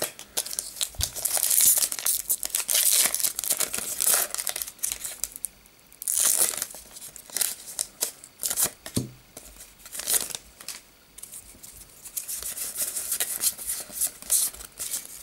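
Foil wrapper of a Pokémon TCG booster pack being torn open and crinkled in the hands: irregular spells of crackly rustling with a short lull about five seconds in.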